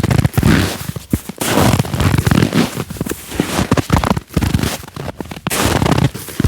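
Footsteps in cold, dry snow, each step a squeaky crunch, coming at a walking pace of about one a second.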